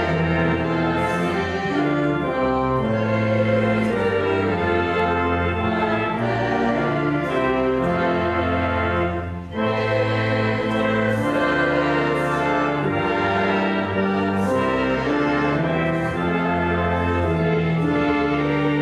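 Pipe organ playing sustained chords over deep pedal notes, with a brief break about halfway through.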